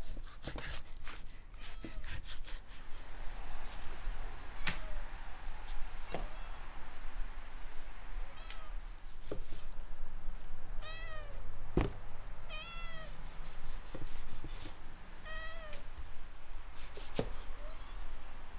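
A domestic cat meowing repeatedly, several short rising-and-falling meows, most in the middle of the stretch. Between them, sharp chops of a cleaver cutting through lamb meat and bone on a wooden chopping board.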